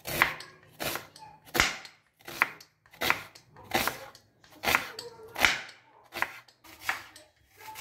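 Kitchen knife slicing through a red onion onto a wooden cutting board: about ten crisp cuts, one roughly every 0.8 seconds, each ending in a knock on the board.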